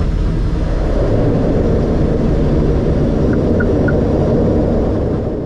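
Loud steady rumble inside an ATR turboprop's cockpit during the landing roll: engines and propellers running together with the noise of the wheels on the runway. It fades out near the end.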